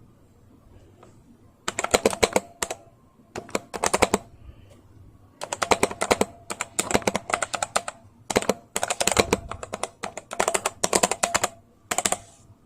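Typing on a 60% mechanical keyboard with Outemu brown tactile switches: rapid runs of sharp key clicks in bursts, with short pauses between words.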